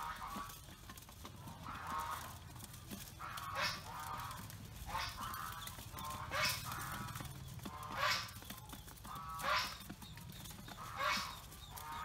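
Waterfowl honking calls repeated at a regular pace, about one every second and a half.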